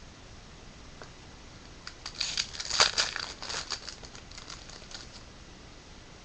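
Crinkling and crackling of a trading-card pack's foil wrapper being handled and torn open, in a burst of about three seconds starting about two seconds in.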